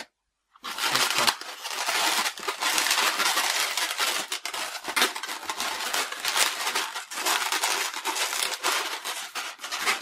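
Inflated white 260 latex modelling balloon rubbing against itself and the hands as it is twisted and wrapped, a dense run of rubbing with many small clicks that starts after a brief silence.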